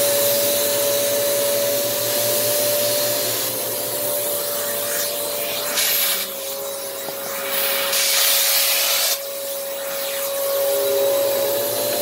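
Hoover PowerDrive Swivel XL upright vacuum (UH75110) running with a steady motor whine over the rush of air through its hose and crevice tool. The airflow hiss grows louder briefly about six seconds in and again from about eight to nine seconds in.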